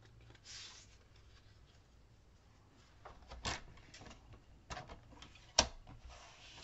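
A paper strip rustling as it is handled and laid on a plastic paper trimmer, with a few light taps and knocks. The sharpest knock comes about five and a half seconds in.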